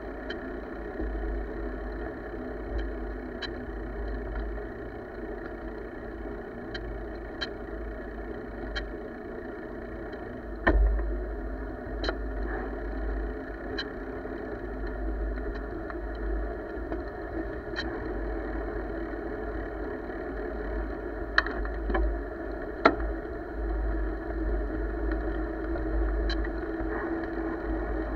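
Bicycle rolling along a paved trail with the camera mounted on the bike: steady tyre and road noise with wind rumbling on the microphone. A sharp click or knock comes every few seconds, the loudest about eleven seconds in.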